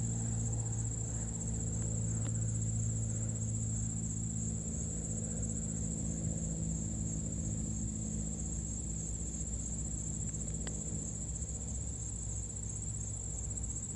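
A steady, high-pitched pulsing trill over a low steady hum, with a couple of faint clicks.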